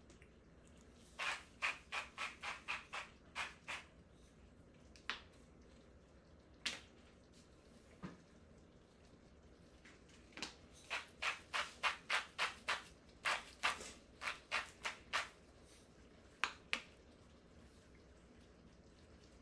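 Cooking noises at a stovetop pot of beef stew: two runs of quick, sharp clinking strokes, about three or four a second, with a few single knocks between and after.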